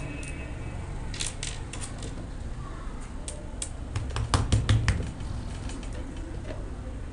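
Small pebbles clicking against one another and on a hard surface as they are handled and set in place: scattered light clicks, with a quicker run of louder ones about four seconds in, over a steady low hum.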